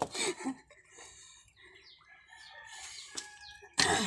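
Bird calls: short sliding chirps and a few held notes, with a brief louder call or voice just before the end.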